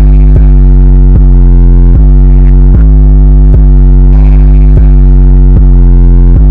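Bass-heavy, distorted synthesizer music played at near full volume: a deep beat hits about every 0.8 seconds over droning low bass notes.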